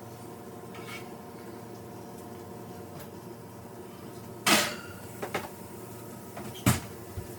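Cookware being handled in a kitchen: a clatter about four and a half seconds in, a couple of small clicks, then a sharp knock near the end, over a steady low hum.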